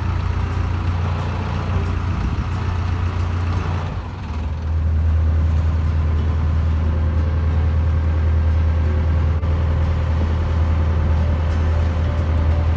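Small ferry boat's engine running steadily, heard from on board as a low drone; it grows louder about four and a half seconds in and then holds.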